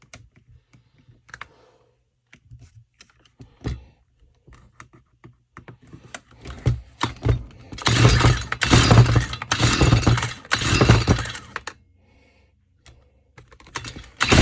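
Light clicking and handling of parts, then from about eight seconds in four quick, loud rattling pulls on the recoil starter of a Stihl FS 45 trimmer's small two-stroke engine, which cranks without settling into a steady run, and another pull starts near the end.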